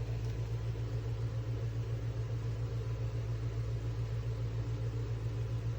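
Mini USB clip fan running on its highest of three speeds: a steady motor hum with airflow noise.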